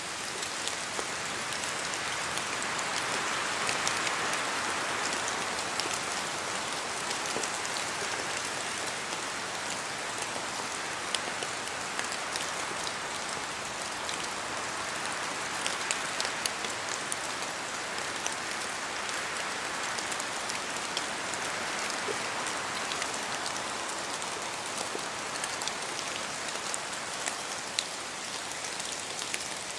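Steady rain falling in a forest, with drops dripping from the trees. It makes an even hiss that swells and eases a few times, with scattered sharp ticks of single drops.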